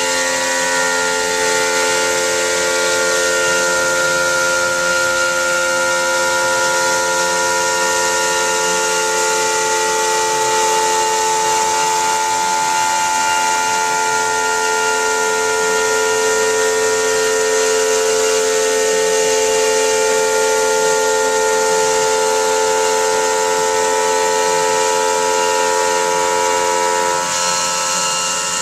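Terminator Zoom CNC stone router running a diamond profiling tool along a stone countertop edge under water spray: a steady, loud whine of several held tones over a hiss.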